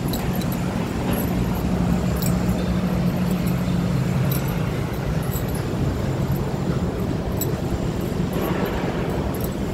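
Steady city street traffic noise, with a low vehicle engine hum that is strongest over the first few seconds and fades about seven seconds in, and scattered light clicks.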